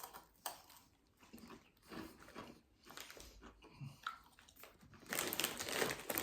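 Chewing crunchy Cheetos Crunchy Buffalo cheese snacks: faint scattered crunches, growing louder and denser about five seconds in.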